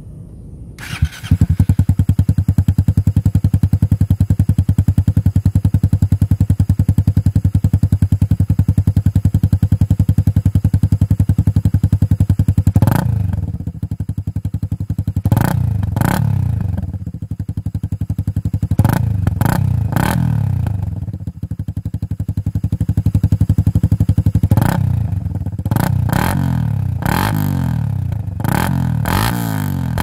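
Suzuki Raider R150 Fi's single-cylinder engine running through a VMAX aftermarket exhaust: it idles steadily for about twelve seconds, then the throttle is blipped over and over, each rev rising and falling quickly.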